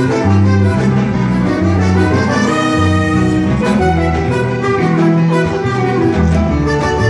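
A live band playing a Cuban bolero: trumpets play the melody over piano, electric bass and drums, with a steady beat and strong bass notes.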